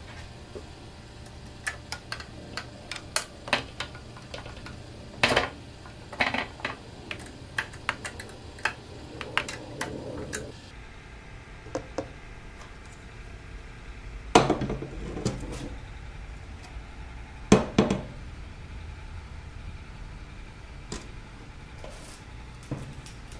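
Metal parts of a home-made chainsaw mill frame handled and fitted on a workbench: scattered clicks, knocks and a few louder clanks, over a steady low hum.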